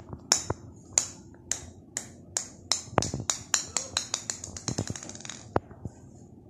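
Small plastic ball bouncing on a hard tile floor: sharp clicks that come closer and closer together over about five seconds as the bounces die away, ending with one last tap.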